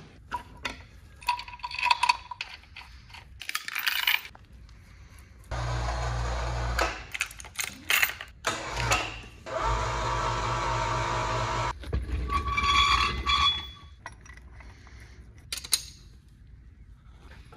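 Metal tools and chain clinking and rattling. Then a power tool runs in several steady bursts over about six seconds, followed by more metal clatter and a few clicks.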